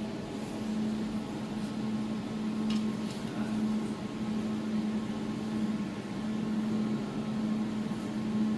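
Jewelry laser welding machine running, with a steady hum from its cooling fan and water pump. There is one faint click about three seconds in.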